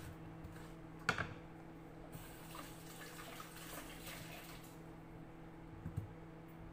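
Water from a kitchen tap running into the sink for about two and a half seconds as an onion is rinsed, with a click about a second in and a soft knock near the end, over a steady low hum.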